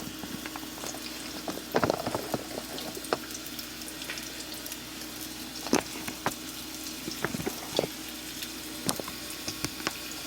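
Chopped onions, bell peppers and celery sautéing in olive oil in a skillet, a steady sizzle, with scattered light clicks and knocks.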